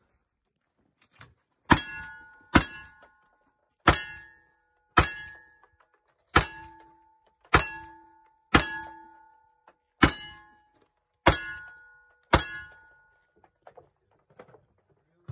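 Ten gunshots at a steady pace of about one a second from a cowboy action shooter's firearm. Each is followed by a brief metallic ring: a steel target being hit.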